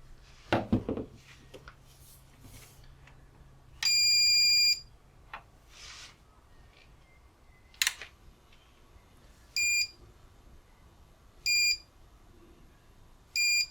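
UPS alarm beeper sounding after the battery swap: one long beep about four seconds in, then short beeps about every two seconds. A knock comes near the start and a sharp click just before the short beeps begin.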